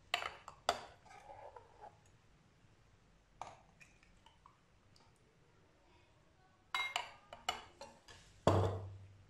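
A steel ladle clinking and knocking against a glass jug and drinking glasses while sharbat is ladled into glasses of ice: a few scattered clinks, a quick cluster near the end, then a heavier knock just before it ends.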